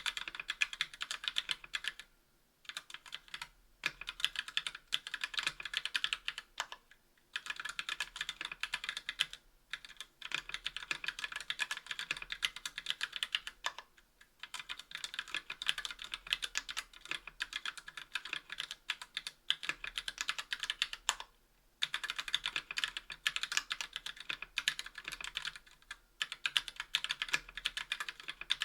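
Continuous fast typing on a 60% aluminium-case mechanical keyboard with TTC Gold V2 Red linear switches and GMK keycaps: a dense clatter of keystrokes bottoming out, broken by several short pauses.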